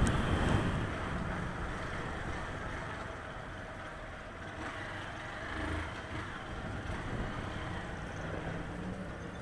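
Small motorcycle engine running at low speed under a haze of wind and road noise, easing off over the first second and then ticking over steadily at low revs.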